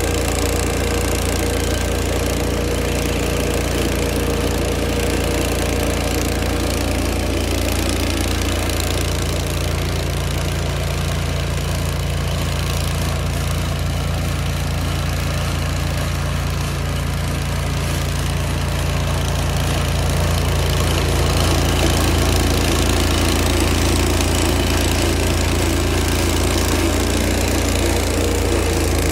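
Vermeer stump grinder's engine running steadily. Its note shifts a little about nine seconds in, and it gets slightly louder after about twenty seconds.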